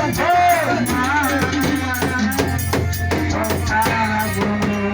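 Live band music: drums and a shaker beating steadily over held bass notes, with a wavering melody line on top.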